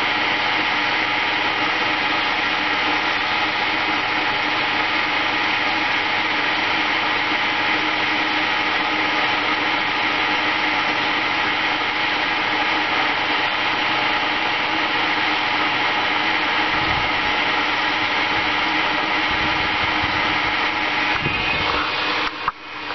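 Wood lathe motor running steadily with a constant whine while a cotton cloth polishes the spinning Banksia seed pod. The sound breaks off near the end.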